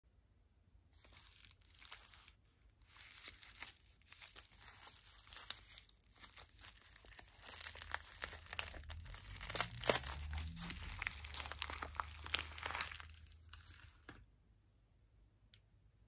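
A paper bar-soap wrapper torn and crinkled open by hand: a run of crackling, rustling and tearing that grows louder toward the middle, with one sharp tear about ten seconds in, then stops a couple of seconds before the end.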